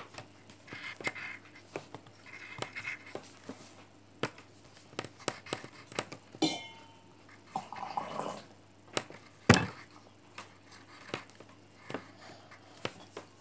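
A pen scratching and tapping on paper on a tabletop while small snake scales are drawn: a run of light, irregular clicks and short scratchy strokes, with one sharper knock about nine and a half seconds in.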